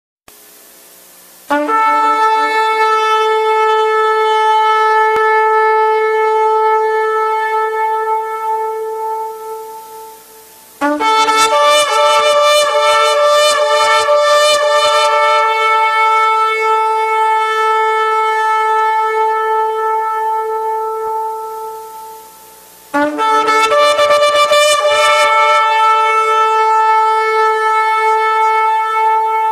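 A shofar (ram's horn) blown in three long blasts. Each opens with a brief lower note that breaks up to a held higher note, and the first two fade out at the end.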